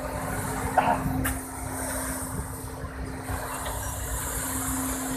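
A steady low machinery hum over a rumbling background noise, with a sharp click a little over a second in.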